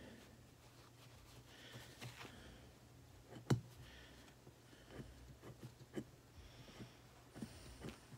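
Razor blade cutting and scraping a red plastic piece by hand: faint scattered scratches and small clicks, with one sharper click about three and a half seconds in. A low steady hum runs underneath.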